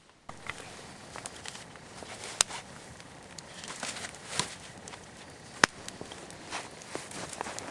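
Boots shuffling and crunching in snow, with scattered sharp clicks and knocks, the loudest about two and a half and five and a half seconds in.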